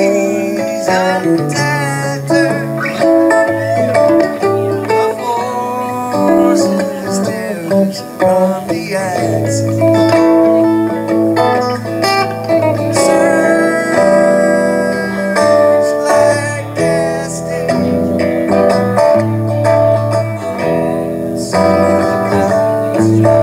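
Two electric guitars playing together in a loose, jam-style duo passage: melodic picked lines over lower chords and bass notes.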